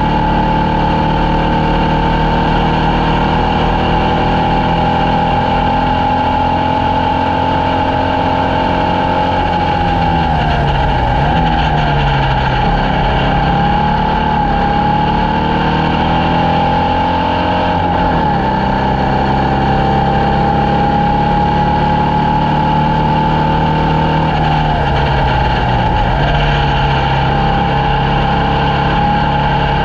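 Formula Vee race car's air-cooled Volkswagen flat-four engine running hard at high revs. Three times the revs fall away in steps and then climb again, as the driver brakes and changes down for corners and accelerates out.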